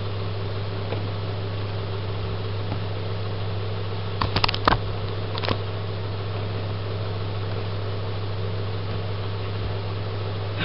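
Steady low mechanical hum, like a fan running, with a few sharp clicks about four and a half seconds in and one more a second later.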